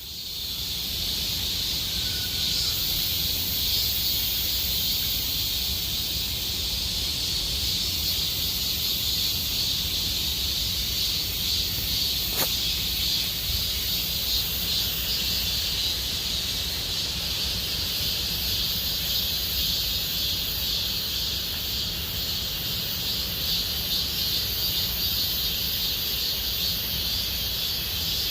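A dense chorus of cicadas buzzing steadily, a high shrill drone with a fast pulsing texture, over a low steady rumble.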